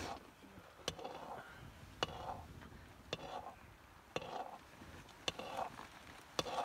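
Metal ladle stirring food in a metal cooking pot, knocking against the pot in sharp clinks about once a second, each followed by a short scrape.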